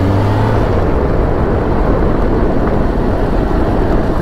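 Kawasaki ZX-10R inline-four heard from the rider's seat at low road speed. Its engine note rises briefly and fades out under a second in, giving way to a steady rush of wind and engine noise.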